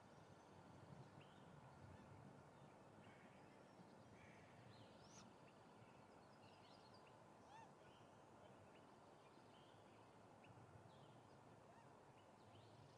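Near silence: low background noise with faint, scattered short bird chirps.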